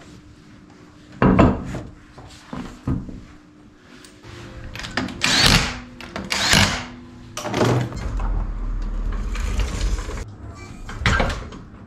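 Clunks and clatter of a car wheel being hung on its hub and the wheel bolts run in by hand, then a trolley jack being worked, with a steady low rumble for a couple of seconds as the car is let down.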